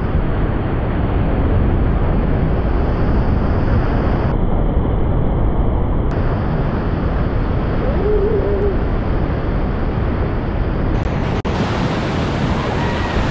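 Whitewater rapids rushing loudly around an inflatable raft, with heavy wind buffeting on the microphone.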